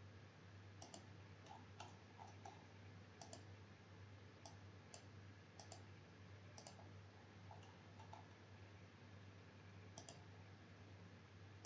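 Faint computer mouse clicks, about a dozen scattered irregularly, many in quick press-and-release pairs, over a low steady hum.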